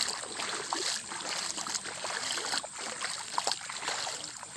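Footsteps wading through shallow floodwater on a dirt path, with irregular splashing and sloshing.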